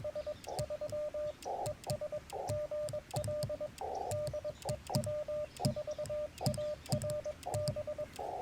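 Morse code sidetone from a Yaesu FT-891 transceiver: a single steady tone keyed in dots and dashes. It comes with the sharp clicks of a twin-paddle key (Bamatech BaMaKeY TP-III) being worked, and patches of radio hiss between the elements.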